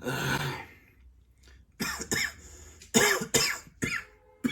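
A sick man coughing: a long rasping throat-clearing at the start, then a string of about six sharp, harsh coughs in the second half.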